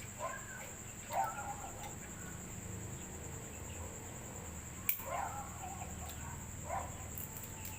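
Crickets chirring steadily in a high, even drone, with a few short faint animal calls and a sharp click about five seconds in.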